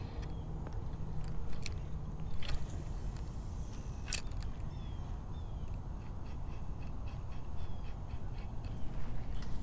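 Low wind rumble on the microphone, with a few sharp clicks, a faint regular ticking in the second half, and short high bird calls.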